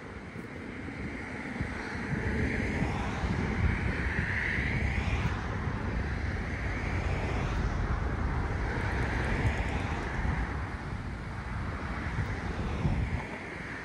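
Wind buffeting the microphone in uneven gusts, over a steady outdoor hiss that swells and fades.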